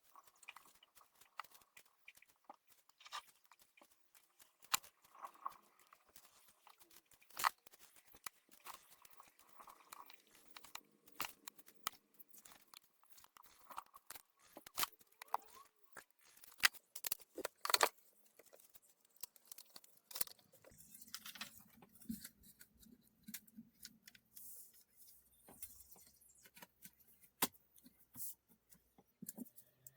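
Irregular clicks, taps and scrapes of plastic keyboard parts being handled and worked on, with a low rumbling stretch about two-thirds of the way through.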